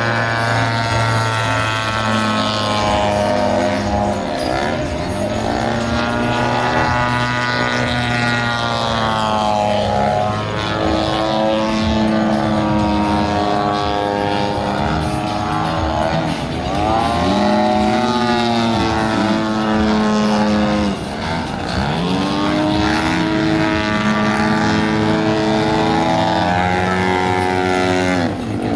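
Desert Aircraft DA-85 single-cylinder two-stroke gas engine and propeller of a large radio-controlled aerobatic model airplane in flight. Its pitch dips and climbs back up every few seconds as it flies.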